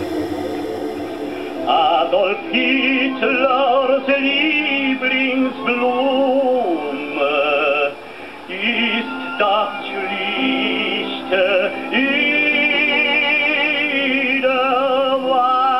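Music: a singing voice with a wide, heavy vibrato, operatic in style, in phrases that slide up into held notes.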